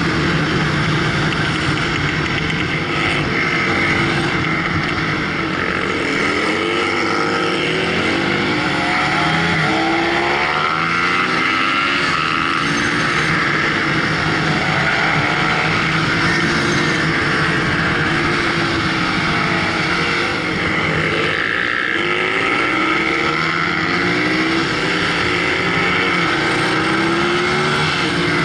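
Supermoto motorcycle engine heard from the bike-mounted camera, revving up and down again and again as the bike accelerates and slows through the corners, over a steady rush of wind noise.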